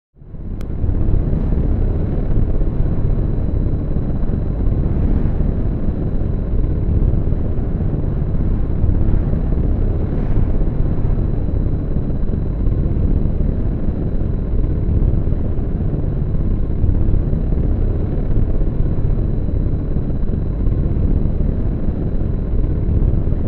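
Steady low machinery rumble with a faint, constant high whine over it, fading in at the start and holding evenly.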